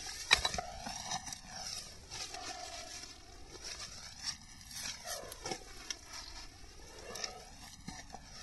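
A wrapped package being handled: rustling and scraping as it is pulled out from among rocks and turned over in gloved hands, with scattered knocks and clicks. The loudest is a sharp knock about a third of a second in. Under it a steady hiss swells and fades every couple of seconds.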